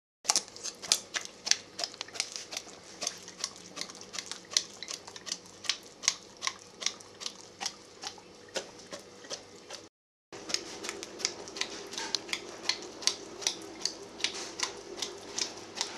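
Rapid, irregular sharp clicks and taps, two or three a second, from Old English Sheepdogs being spoon-fed rice pudding on a tiled floor. The sound drops out briefly about ten seconds in.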